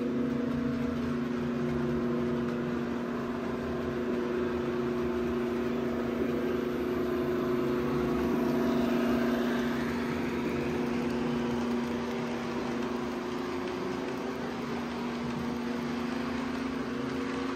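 Model diesel locomotive's engine sound: a steady diesel drone, with a faint whine rising and then falling around the middle.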